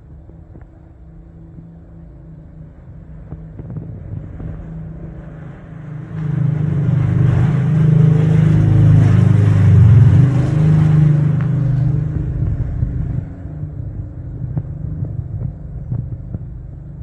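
Engine rumble of a passing motor vehicle. It grows louder, stays loud for several seconds midway, then fades.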